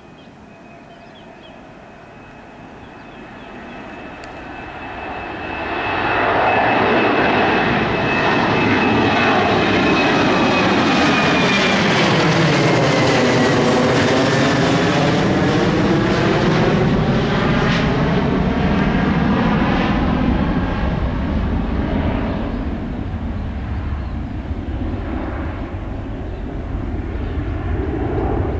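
SilkAir jet airliner taking off at full thrust: a high engine whine and rumble build over the first six seconds and stay loud as the aircraft passes. The whine drops in pitch about halfway through, and the sound eases off slowly near the end.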